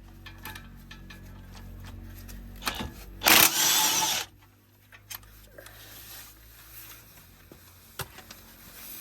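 Light clicks and clinks of mechanic's tools during a front CV axle job, with one loud, short burst of a power tool about three seconds in that lasts about a second.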